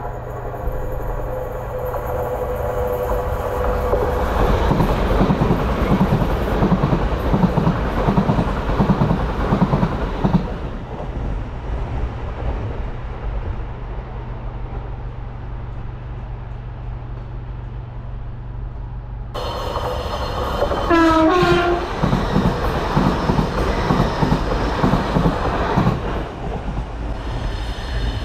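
Class 55 Deltic diesel locomotive passing at speed with its train: a steady engine drone under a regular beat of wheels on the rail joints, loudest for a few seconds as it goes by. After an abrupt change, a second pass follows, with a brief horn blast about two-thirds of the way through.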